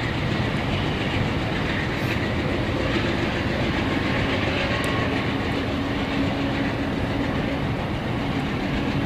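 Amtrak California bilevel passenger train rolling away on the rails, a steady rumble of wheels on track with a few faint clicks over the rail joints.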